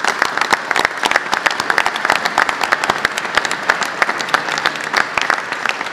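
A crowd applauding, with dense, even hand-clapping throughout.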